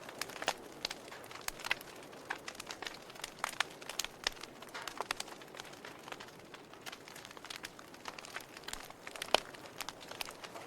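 Wood fire crackling in a fireplace: irregular small pops and snaps over a soft hiss, with one sharper pop about nine seconds in.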